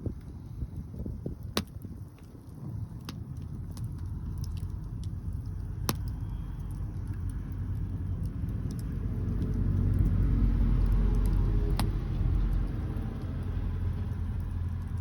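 Strong wind buffeting the microphone: a low rumble that swells about ten seconds in, with a few sharp clicks scattered through it.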